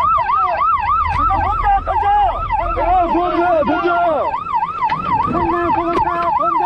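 Coast guard boat sirens: an electronic yelp siren sweeping up and down about three times a second, overlapped through the middle by a second, lower siren with a slower wavering pattern, over the low rumble of a boat engine in the first few seconds.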